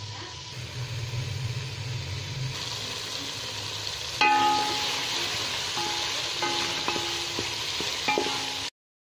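Food frying with a steady sizzle in a pot, while a metal spoon stirs and clinks against the pot about five times from about four seconds in, each strike ringing briefly. The sound cuts off suddenly near the end.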